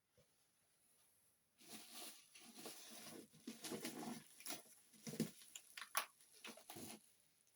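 Packaging being handled and pulled open: a few seconds of rustling and scraping with several sharp clicks and snaps, stopping shortly before the end.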